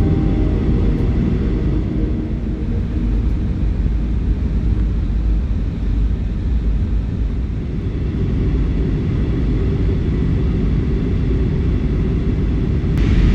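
Steady low rumble of a moving vehicle, with music fading out over the first couple of seconds.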